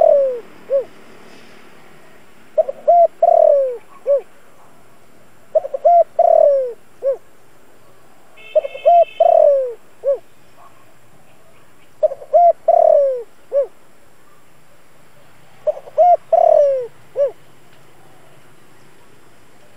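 Spotted dove cooing its song: five repeated phrases about three seconds apart, each two or three short notes, then a longer falling coo and a short final note.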